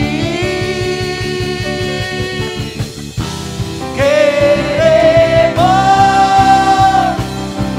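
Praise-and-worship music: a voice sings two long held notes over instrumental backing with a steady pulse.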